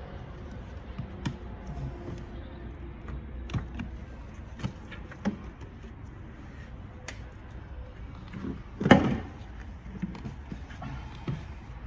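Plastic cowl-panel retaining clips and trim being pried and worked loose by hand: scattered small clicks and knocks, with one louder knock about nine seconds in.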